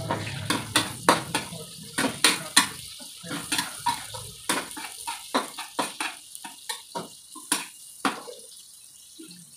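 Metal spatula scraping and clinking against an aluminium wok while stirring onions and garlic frying in oil. The strokes come irregularly, two or three a second, and thin out near the end.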